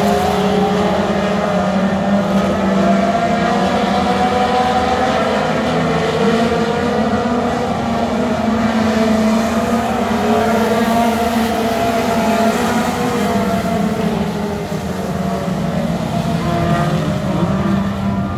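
A pack of Pure Pony class dirt-track stock cars racing around the oval, several engines running together, their pitches rising and falling through the laps.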